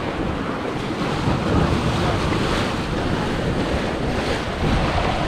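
Wind buffeting the microphone over the steady rush of waves and sea water around a sailing yacht under way.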